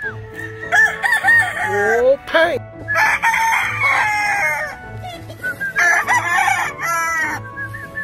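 Gamefowl roosters crowing: several loud crows one after another, the longest about halfway through, with a low steady beat underneath.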